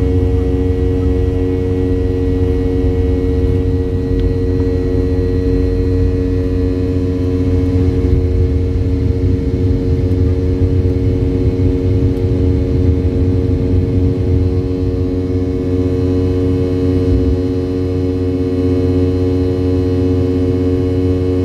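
Boeing 717's rear-mounted Rolls-Royce BR715 turbofan engines at takeoff power, heard from the cabin beside the engine through the takeoff roll, liftoff and climb-out. It is a steady, loud drone, with a low rumble under several held tones.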